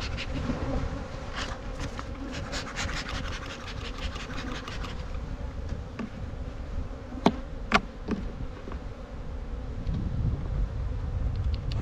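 Honeybees buzzing steadily around an opened hive. A run of scraping comes early, and two sharp clicks midway, as a frame is pried loose.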